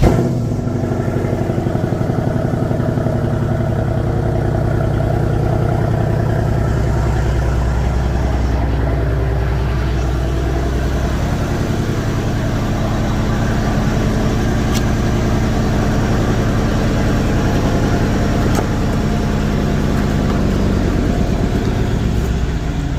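Mercedes CLS 63 AMG's 5.5-litre twin-turbo V8 idling steadily, run to warm the oil before an oil change.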